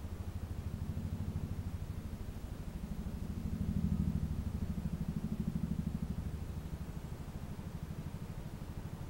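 A cat purring: a low, rapid rumble that swells and fades in slow cycles, loudest about four seconds in.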